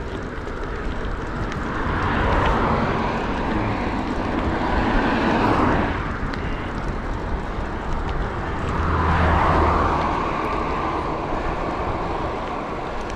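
Two cars passing one after the other, their tyre noise swelling and fading, over a steady low wind rumble from riding.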